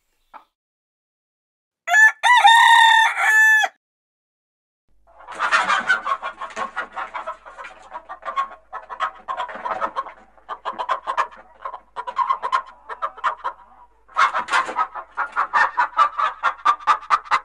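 Domestic chickens: a rooster crows once, loud and nearly two seconds long, about two seconds in. After a short pause, hens start clucking rapidly and keep it up.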